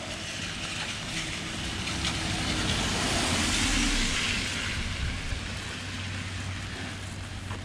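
A car passing on a wet street, its tyres hissing on the wet road, swelling to its loudest about halfway through and then fading, over steady rain.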